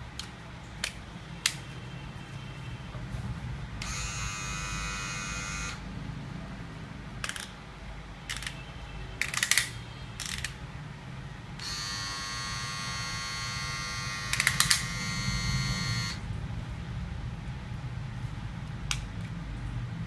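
Philips HC3418 rechargeable hair clipper switched on and buzzing steadily twice: once for about two seconds, then for about four seconds. Sharp clicks come in between as the plastic guide comb is handled and fitted.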